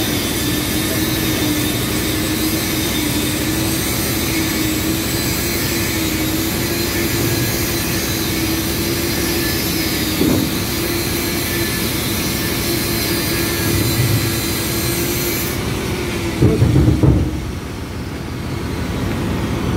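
Steady machinery drone of a ship's engine room, a constant hiss with a steady hum under it. A short louder rumble comes about sixteen seconds in, and the hiss dims just before it.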